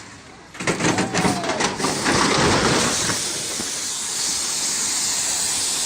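A quick run of knocks and clatters, then a steady hiss of noise that carries on to the end.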